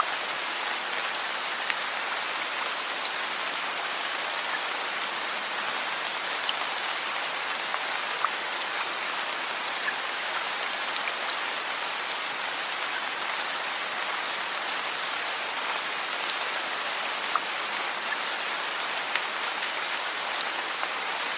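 Steady rain falling on a surface: an even hiss with individual drops ticking now and then.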